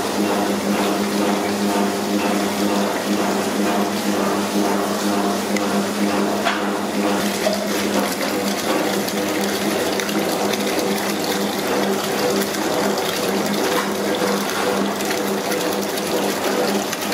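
Water pouring from a hose into a large aluminium pot of frozen fish pieces, splashing steadily into the water already in it as the ice thaws off the fish. A steady hum runs underneath.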